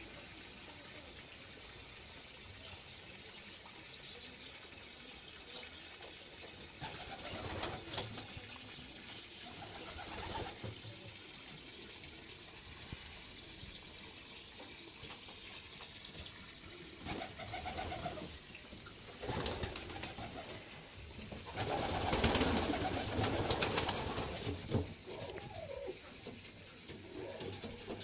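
Saxon swallow pigeons cooing in bouts, several birds calling on and off with quiet gaps between. The loudest stretch of cooing comes about three quarters of the way through, and a few brief clicks are mixed in.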